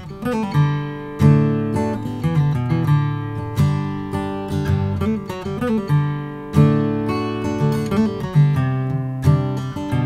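A 1968 Gibson Hummingbird square-shouldered dreadnought acoustic guitar being played solo, with chords and picked notes ringing out.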